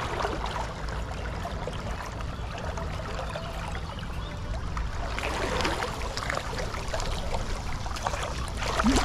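Flowing river water, a steady rushing and rippling that grows a little busier about halfway through.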